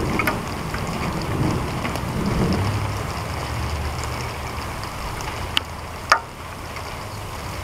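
Low rumble of distant thunder under a steady hiss of wind and rain, with two sharp clicks about half a second apart near the end.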